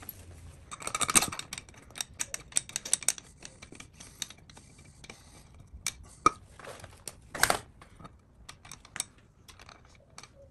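Irregular light metallic clicks and taps as a Hinson clutch cover is fitted onto the engine and its bolts are started with a hand tool, with a quick flurry of clicks about a second in and another about seven seconds in.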